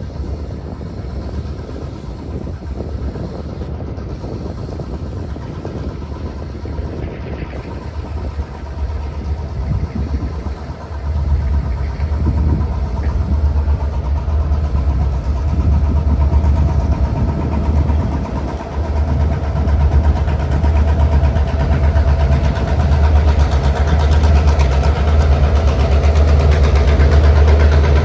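Diesel-electric freight locomotives, GATX 2671 leading a second unit, rolling slowly closer with a steady low engine drone that grows louder over the second half.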